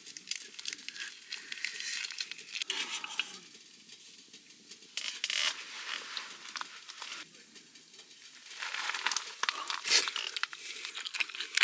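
Crinkling of a small plastic sauce packet as it is squeezed, in several irregular bursts with short quieter pauses between them.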